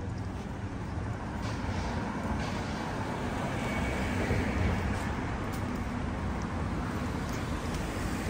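Street traffic: a motor vehicle running past, its rumble building to a peak about four seconds in.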